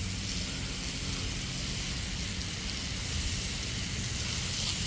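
Steady hiss of water spraying from a hose, rinsing sawn lumber.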